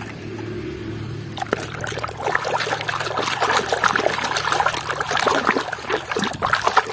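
Water splashing and sloshing as a hand scrubs a plastic toy in a basin of foamy, muddy water. The sound gets louder after the first second and a half.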